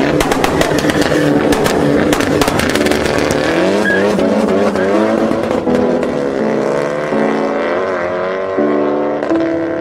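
Abarth hatchback's turbocharged four-cylinder engine revving hard as it pulls away, with a rapid run of sharp exhaust pops and crackles in the first few seconds. The engine note then rises and drops through the gear changes as it drives off.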